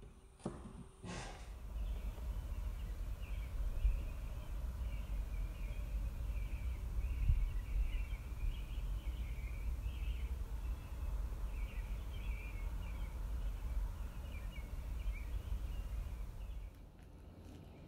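Birds chirping irregularly over a steady low rumble; both start about a second in and drop away shortly before the end.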